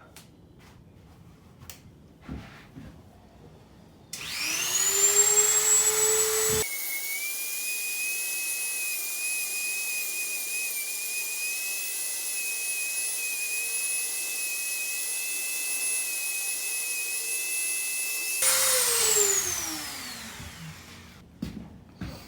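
Dremel rotary tool spinning up with a rising whine about four seconds in, then running at a steady high whine as it grinds a high spot off a deer-antler ring. It winds down with a falling whine near the end.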